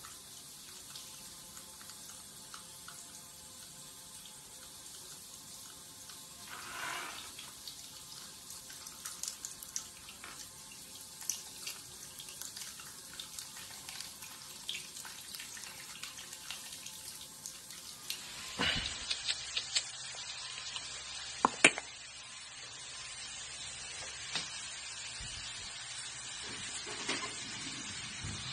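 Handheld shower head lying on a tiled shower floor, spraying water upward: a steady hiss of spray with small splashes. About eighteen seconds in it cuts to a different recording, a hiss with a few sharp clicks.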